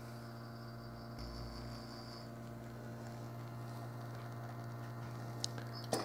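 La Marzocco Linea Micra's rotary pump running through an espresso extraction: a quiet, steady hum. A couple of faint ticks near the end.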